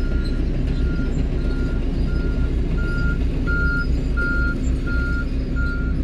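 Heavy-equipment reversing alarm beeping at an even pace, about three beeps every two seconds, over the steady low rumble of a heavy diesel engine.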